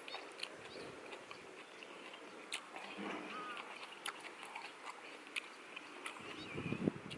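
Close-up eating sounds: biting and chewing blue swimming crab, with scattered small clicks and a few low thumps near the end.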